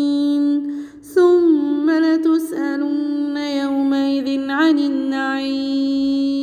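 A woman's voice reciting the Quran unaccompanied in melodic tajweed chant, with long held notes and small gliding ornaments. There is a short pause for breath about a second in.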